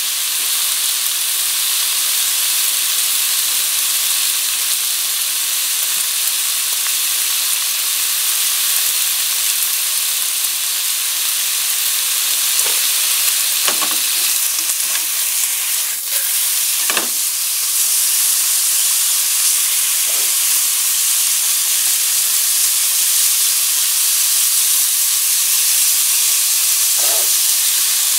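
Thinly sliced pork scraps sizzling in a dry, unoiled non-stick frying pan. A few light knocks of chopsticks against the pan come a little past the middle and again near the end as the meat is turned.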